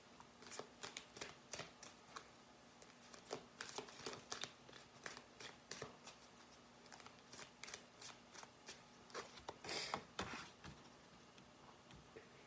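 Tarot cards handled and shuffled by hand: a run of soft, irregular card flicks and taps, with a brief louder rustle about ten seconds in.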